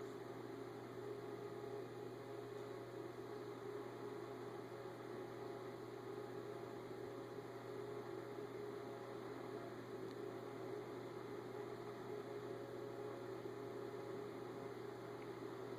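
Steady electrical hum with a layer of hiss, unchanging throughout, with no distinct sounds on top.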